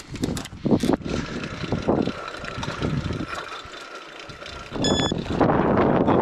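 A vehicle bumping and rattling along a rough dirt track, with irregular knocks. About five seconds in, a loud steady rushing noise sets in.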